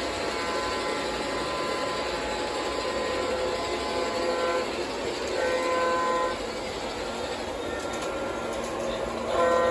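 O-gauge model train running on three-rail FasTrack track, with a steady rumble of wheels on the rails. Its horn sounds in several blasts: a long one at first, a shorter one about halfway, a fainter one after it, and another starting near the end.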